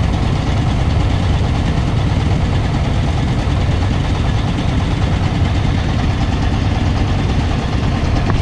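A ship's engine running steadily with a deep, even rumble.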